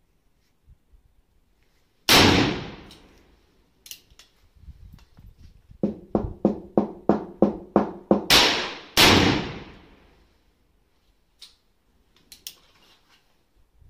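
Pietta Remington 1858 Sheriff .44 cap-and-ball revolver firing black-powder shots with a long ringing decay: one about 2 s in, and two close together around 8 to 9 s. Between them comes a quick run of about nine lighter, sharper cracks at about four a second.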